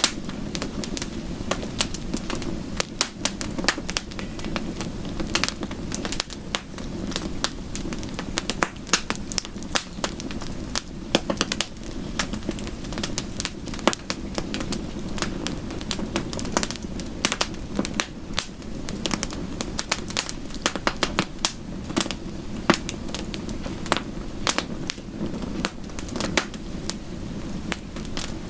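Wood fire crackling, with dense, irregular sharp pops and snaps over a steady low rush.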